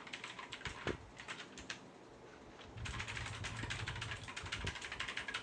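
Typing on a mechanical keyboard with clicky blue switches (AULA F2068), rapid keystrokes clattering: a burst of typing, a short pause, then a faster, steady run of keys from about three seconds in.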